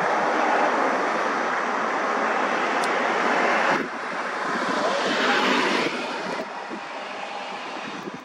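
Road traffic noise, with a heavy container truck's engine and tyres passing close. The loud, even noise drops sharply about four seconds in and falls again about six seconds in.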